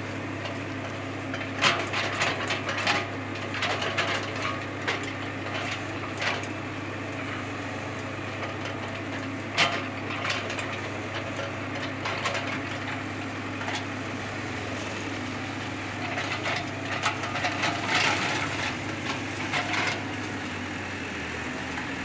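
Excavator diesel engine running steadily while the bucket digs wet soil, with irregular crunches and knocks of earth and clods.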